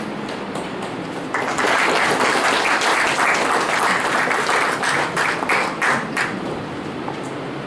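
Audience applauding, starting suddenly about a second in and dying away with a few last claps some five seconds later.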